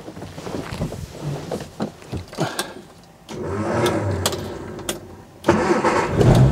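A few light knocks and clicks as the driver settles in, then the 1965 Mini Cooper S's A-series four-cylinder engine is cranked on the starter for about two seconds and catches about five and a half seconds in, running loudly from a cold start.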